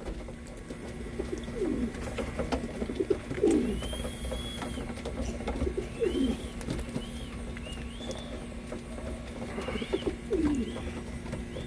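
Racing pigeons cooing: a few low, falling coos spaced a couple of seconds apart, with short high chirps between them.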